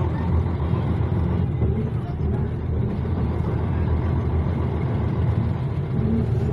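Cabin sound of a Karosa LC735 coach under way: its diesel engine running steadily with road noise, heard from inside the bus.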